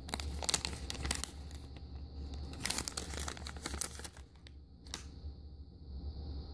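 A shiny plastic toy blind bag being torn open and crinkled by hand, rustling in uneven bursts, with a single light click about five seconds in.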